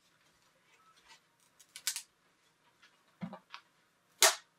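A few sharp clicks and taps as a Prusa MK3's removable spring-steel print sheet, carrying freshly printed plastic gears, is handled and laid back on the printer's magnetic bed; the loudest click comes near the end.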